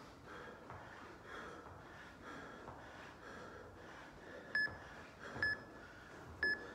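Interval timer app sounding three short, identical beeps about a second apart, the countdown to the end of a work interval. Under them, hard rhythmic breathing from exercise.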